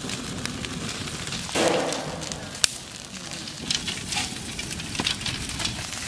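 Open wood fire crackling under whole eggplants charring on a grill rack, with many small snaps and a sharp pop about two and a half seconds in.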